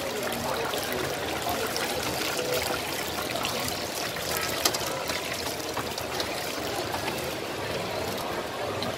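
Teochew meat puffs deep-frying in a wok of hot oil: a steady sizzle, with a few light clicks.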